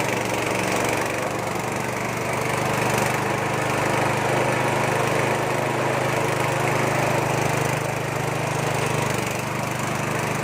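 Small Nishikawa engine running steadily, driving a peanut-grinding mill, with the rough noise of the mill grinding.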